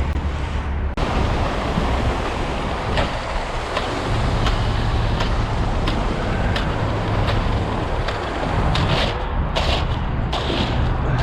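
An engine running steadily with a low hum, with scattered short knocks and scrapes from work on the slab.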